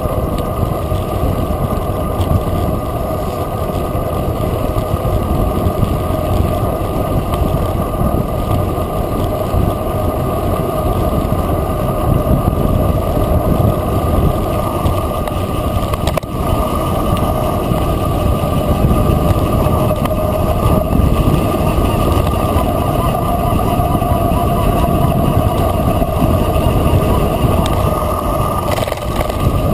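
Mountain bike descending a gravel dirt track at speed: steady wind rushing over the microphone mixed with the tyres rumbling on the loose surface.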